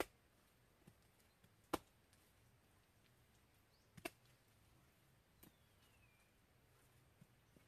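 Hands slapping wet mud plaster onto a mud wall: four sharp slaps a second or two apart, the second the loudest. A faint bird chirp falls in pitch between the last two slaps.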